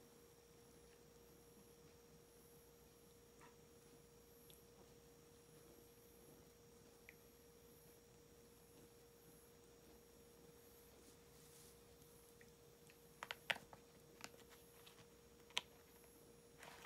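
Near silence: faint room tone with a steady hum, broken by a quick cluster of small sharp clicks near the end.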